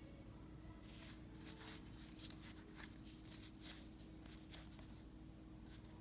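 Baseball cards being slid one over another in the hands while sorting through a freshly opened pack: a string of faint, soft swishes, over a steady faint hum.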